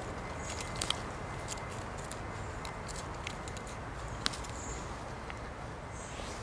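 Steady outdoor background noise with a few sharp light clicks and rustles, and a brief high chirp a little past halfway.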